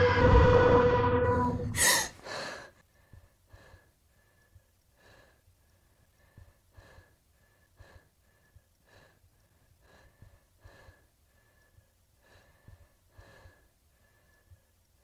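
A loud droning underwater-style sound with several steady pitches cuts off about two seconds in, with a sharp gasp and a second quick breath. After that it is nearly quiet, with faint soft ticks about once a second.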